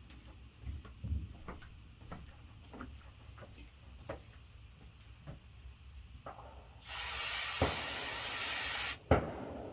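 An aerosol can sprayed in one steady hiss of about two seconds that stops suddenly, after a run of light clicks and taps from handling parts.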